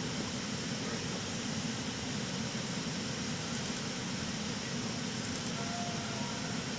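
Steady rushing noise of an airliner flight deck in cruise flight: airflow, engines and air-conditioning blended into one even drone.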